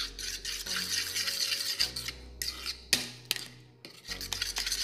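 A utensil stirring and scraping egg-and-mashed-banana batter in a plastic bowl, in uneven strokes with short pauses and a sharp knock about three seconds in.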